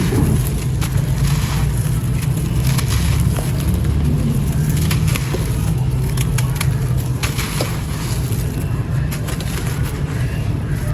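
Dry red dirt crumbling, with an irregular scatter of small crackles and crunches over a steady low rumble.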